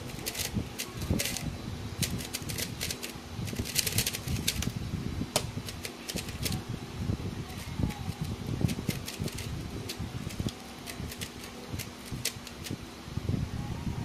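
GuoGuan YueXiao 3x3 speedcube being turned fast in the hands, a rapid run of plastic clicks and clacks as the layers snap round. The quick turning stops about four to five seconds in, and slower, scattered turning clicks follow.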